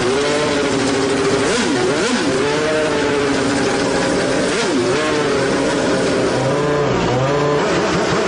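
Renault Espace F1's 3.5-litre V10 Formula 1 engine revved hard and repeatedly, its pitch climbing and dropping several times, loud enough that a bystander plugs his ears.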